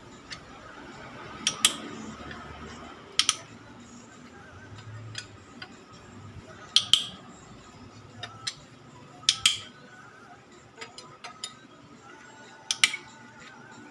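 Sharp metallic clinks of hand tools and parts, several in quick pairs, coming every two to three seconds while an engine cylinder head is being dismantled.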